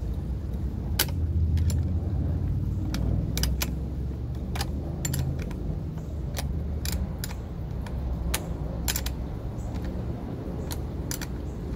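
Irregular sharp metallic clicks and clinks of tools and parts being handled while a steering damper is fitted to an electric scooter, over a steady low rumble.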